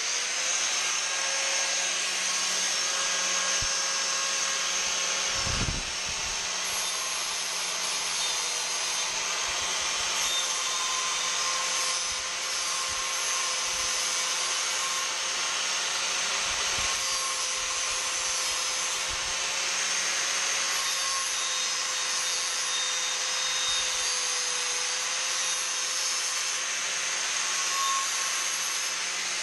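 Electric angle grinder running steadily, shaping the edge of an aluminium badge blank held in a vise. Its motor whine wavers and dips slightly as it is pressed into the work.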